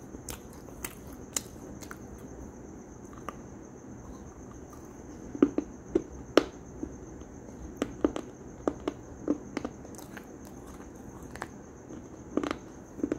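A crunchy snack being chewed close to the microphone: irregular crisp crunches with pauses between them, clustered about halfway through, again a little later and near the end. A faint steady high whine runs underneath.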